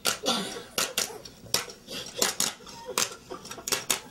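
Hand claps, sharp and irregular, two or three a second.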